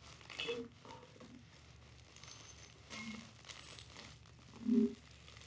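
Quiet crinkling and rustling of a plastic padded mailer as it is cut with scissors and then worked at by hand, with a few soft clicks. Near the end comes a brief low, voice-like sound, the loudest moment.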